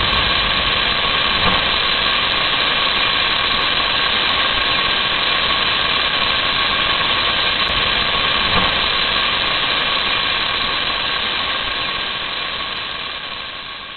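Rocket engine with a niobium alloy nozzle firing on a ground test stand: a steady, hissing rush of exhaust noise that holds level, then fades away over the last few seconds.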